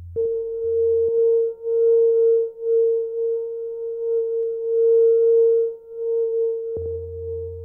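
A single held electronic tone in an experimental music piece, pure and ringing like a sine wave, swelling and dipping in loudness several times. A low hum comes in near the end.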